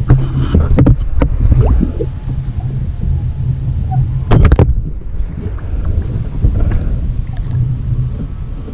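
Wind buffeting the microphone on a fishing kayak, a steady low rumble, with a few sharp clicks in the first two seconds and one short loud rush about four and a half seconds in.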